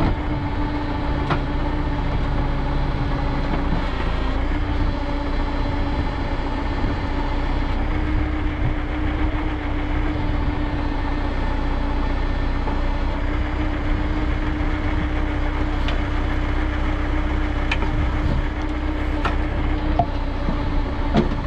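The diesel engine of a YuMZ EO-2621 backhoe excavator running steadily at a constant speed, with a few faint clicks or knocks.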